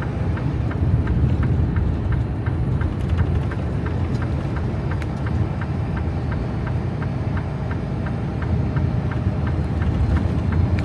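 Steady low rumble of a Peterbilt 389 semi truck's engine and road noise heard inside the cab while driving, with a regular light ticking about three times a second.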